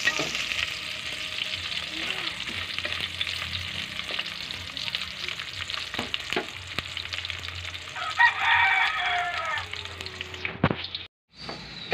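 Garlic and ginger sautéing in hot oil, a steady sizzle with the clicks and scrapes of a spatula stirring the pan. A rooster crows once about eight seconds in.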